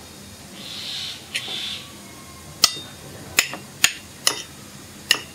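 Metal spoon scraping across a china plate as it cuts through a soft brownie. Then about five sharp clinks of the spoon against the plate.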